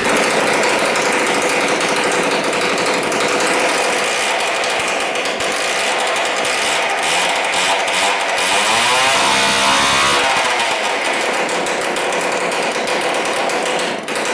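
Small single-cylinder petrol engine on a home-built go-kart, fired up from cold with the choke on and running loudly and steadily; its speed wavers briefly about two thirds of the way through.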